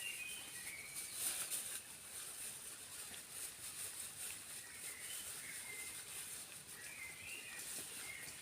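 Forest ambience: a bird sings short warbling phrases a few times, at the start, about five seconds in and again about seven seconds in, over a steady high-pitched insect buzz and a constant background hiss.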